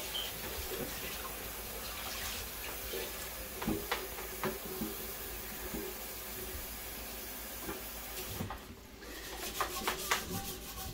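Hot oil hissing and sizzling in a frying pan as spoonfuls of gulgula batter are dropped in to deep-fry, with a few light clicks of the spoon.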